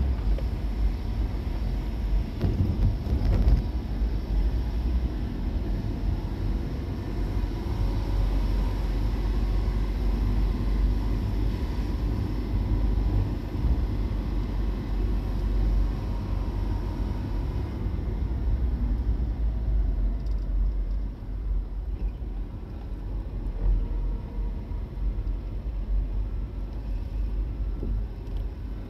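A steady low rumble with an even noisy hiss above it.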